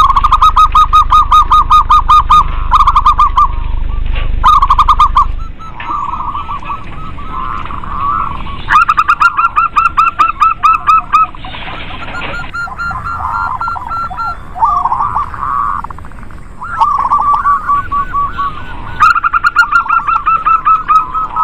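Zebra doves (local perkutut) cooing in rapid runs of short staccato notes, several runs overlapping at slightly different pitches. A low hum underneath stops about five seconds in.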